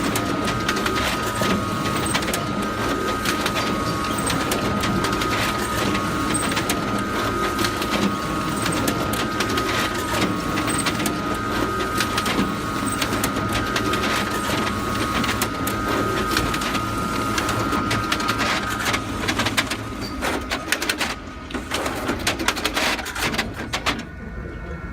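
Photocopier running: a steady high whine over fast mechanical clicking and rattling. The whine stops about three quarters of the way through, leaving irregular clicks and clatter that thin out toward the end.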